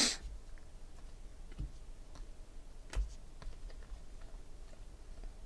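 Panini Prizm basketball cards being flipped through by hand, their edges giving faint, scattered clicks and ticks as each card is slid off the stack. One sharper click comes about three seconds in.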